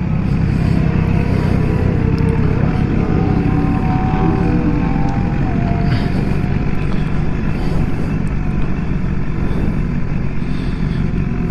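2015 BMW S1000RR inline-four sport bike engine running at low speed, its pitch rising and falling slightly in the middle, heard from a helmet-mounted microphone with wind and engine noise blending into a steady rumble.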